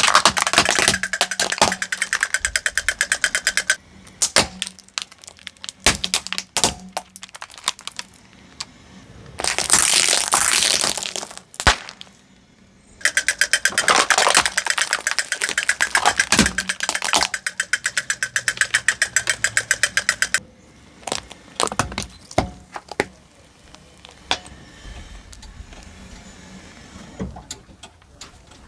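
Plastic toys cracking and crunching under a car tyre: two long runs of rapid, even clicking, a dense crunching burst about ten seconds in, and scattered single sharp cracks.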